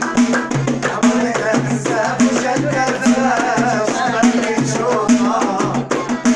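Live Moroccan houariyat folk music: a woman singing over a frame drum beaten by hand and quick rhythmic hand claps.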